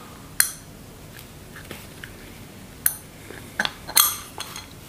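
Light clicks and clinks of small metal parts being handled as an LPG gas reducer is put back together: a few separate sharp taps, the loudest about four seconds in.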